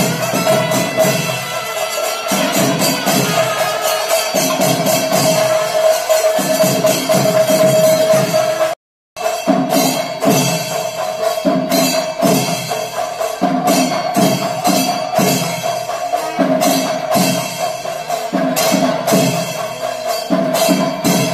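Kerala temple procession music: drums beaten in a driving rhythm with clashing cymbals over a steady, held high tone. The sound cuts out for a moment about nine seconds in, then carries on.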